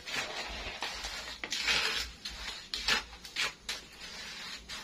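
A spatula scraping and stirring krupuk crackers around a shallow pan over a wood fire, in a run of irregular rasping strokes.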